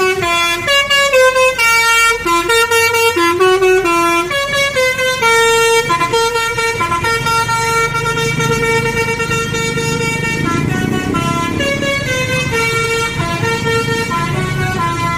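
Bus 'telolet basuri' multi-tone air horn playing a quick tune, its notes stepping up and down every fraction of a second. A low rumble joins underneath about halfway through.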